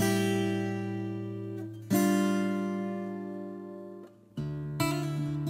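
Progressive rock music: acoustic guitar chords, each struck once and left to ring out and fade, with a second chord about two seconds in. After a brief dip near the end, the music resumes with a deeper bass part underneath.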